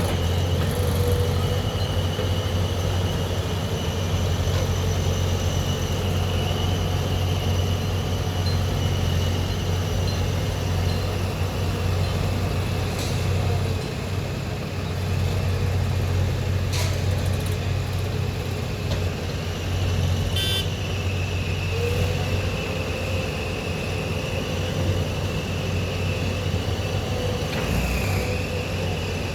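Diesel engine of a JCB 3DX backhoe loader running steadily while loading soil, with a steady high whine over it. A couple of sharp knocks come near the middle, and a short rattle about two-thirds through.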